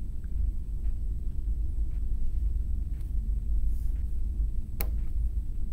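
A steady low rumble, with a single sharp click nearly five seconds in.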